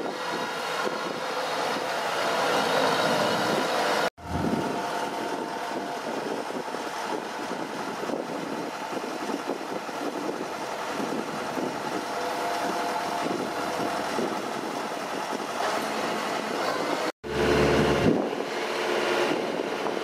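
Kubota DC-105X combine harvester's diesel engine and machinery running steadily, broken by two brief dropouts to silence about four seconds in and near the end.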